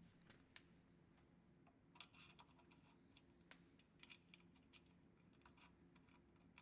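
Near silence with a faint steady hum and a scattering of faint, irregular light clicks, a few a second at most.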